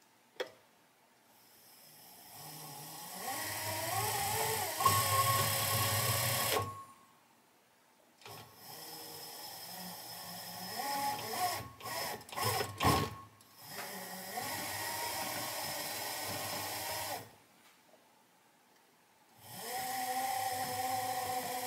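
Battery-powered electric motors of an RC lawn mower spinning up and down under radio-control throttle, with a whine that rises and falls in pitch as the speed changes. There are three runs with pauses between them, and a few sharp clicks in the middle run.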